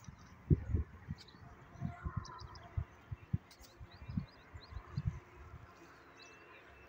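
Small birds chirping faintly again and again, over irregular low buffeting of wind on the microphone.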